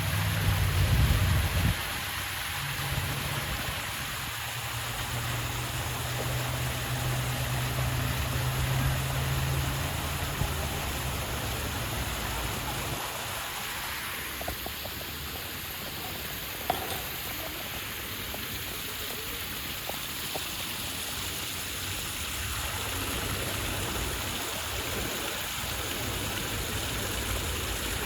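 Waterfall rushing steadily, an even wash of falling water. A low steady rumble sits under it for roughly the first twelve seconds, and there is one brief click about seventeen seconds in.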